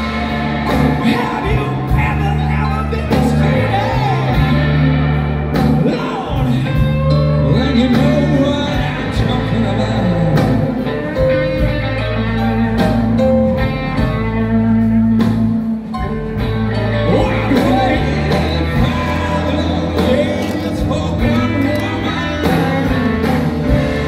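Live blues-rock band playing through the stage PA: electric guitars, keyboards and drums over a moving bass line.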